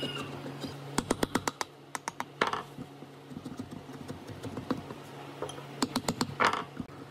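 Hand chisel picking and scraping crumbly rotten wood out of the inside of a hollow wooden jar: clusters of quick clicking taps about a second in and again near six seconds, each followed by a short scrape. A steady low hum runs underneath.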